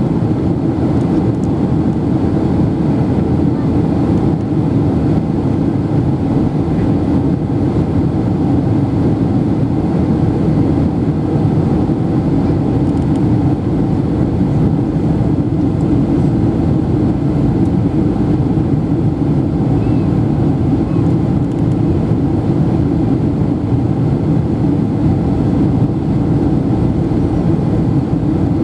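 Steady drone of an airplane cabin in flight: engine and rushing-air noise heard from inside the cabin.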